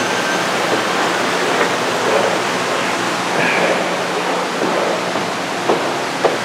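Man-made display waterfall pouring into a pool: a steady rush of falling water, with a couple of light knocks near the end.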